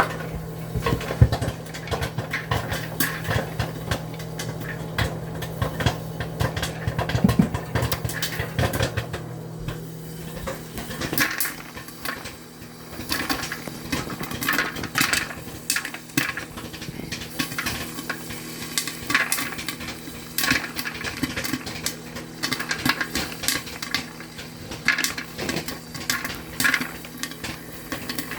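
Popcorn kernels popping, many quick irregular pops in a dense run, over a steady low hum that changes pitch about eleven seconds in.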